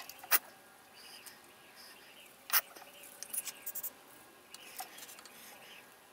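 A few sharp clicks or taps: one about half a second in, a louder one a little past two and a half seconds, then a quick run of smaller clicks. Faint bird chirps sound in the background throughout.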